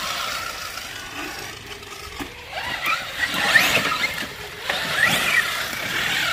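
Electric motor of a radio-controlled scale trail truck whining in several bursts, its pitch rising and falling with the throttle.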